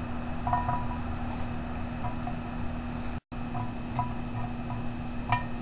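Light metal clinks and taps from tongs setting charcoal briquettes one at a time onto the lid of a cast-iron Dutch oven, over a steady low hum. The sound cuts out for a moment a little past halfway.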